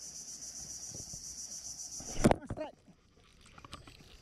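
Insects trilling in a steady, high, finely pulsing chorus. About two seconds in, a loud knock cuts the chorus off, and a few light clicks follow.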